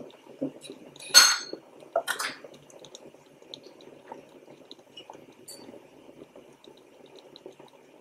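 Spoon and metal measuring cup clinking and scraping while a thick sauce ingredient is scooped and measured, with two loud clinks about one and two seconds in. After that come only faint light taps over a low steady background.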